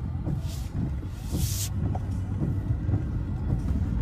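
Car driving steadily, a low engine-and-tyre rumble heard from inside the cabin, with two short hisses near the start.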